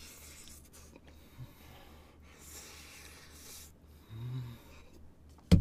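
A person chewing a mouthful of fried chicken, breathing out in noisy puffs, with a short low hum about four seconds in. A sharp knock near the end.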